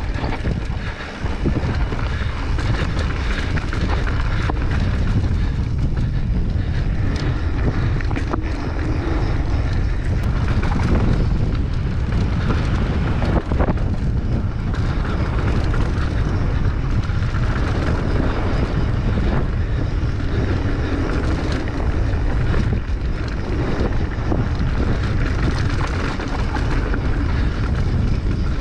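Wind buffeting a GoPro's microphone as a mountain bike rolls down a dry dirt singletrack, with scattered short clicks and rattles from the bike over the bumps.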